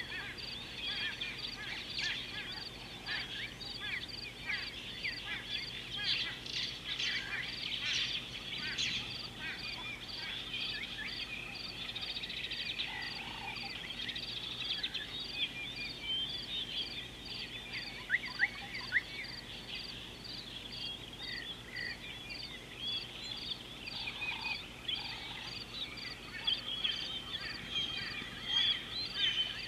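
Wild birds calling in a dense chorus: many short chirps and whistles overlapping, busiest in the first third. A high thin note pulses steadily about twice a second under it.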